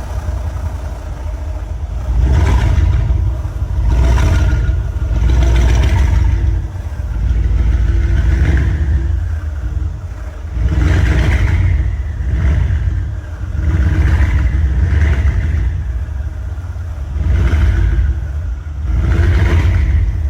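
Mercedes-AMG CLS63 S twin-turbo V8 being revved again and again, about nine rev blips a couple of seconds apart, each rising and falling with a turbo whistle over the engine note.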